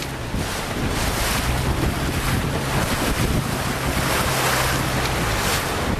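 Strong 25–30 knot wind buffeting the microphone, a steady gusty rushing over the splash and wash of short, breaking waves.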